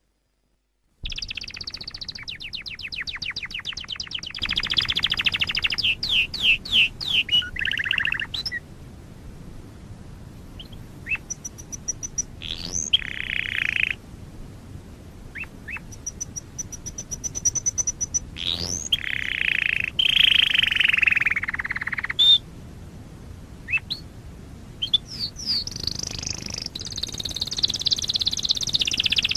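Domestic canary singing in a series of rapid, high trills and rolling phrases, starting about a second in, with a couple of pauses of a few seconds between song bursts.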